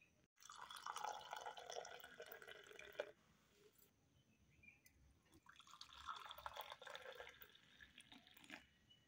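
A milky drink poured in a thin stream from a height into a terracotta clay cup, twice: two pours of about three seconds each, with a short pause between.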